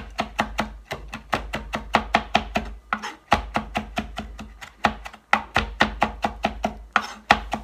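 Knife chopping a mix of garlic and citrus peel very finely on a cutting board: quick repeated strikes, about five or six a second, with a short pause about three seconds in.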